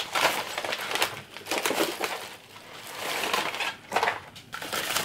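Rustling and crinkling of a bubble-lined kraft padded envelope as packaged items are dragged out of it, in irregular bursts.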